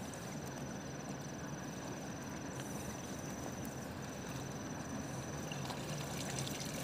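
Steady, even rush of a wide river flowing past, with a faint thin high tone that breaks off twice.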